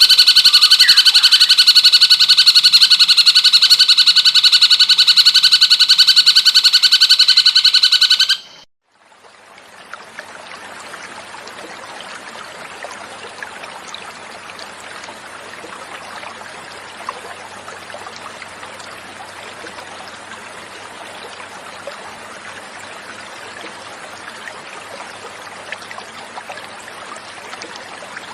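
Recorded cucak cungkok call: a loud, rapid, unbroken trill that cuts off abruptly about eight and a half seconds in. After a moment of silence, a steady hiss of flowing water takes over at a much lower level, the water-sound pause between call tracks.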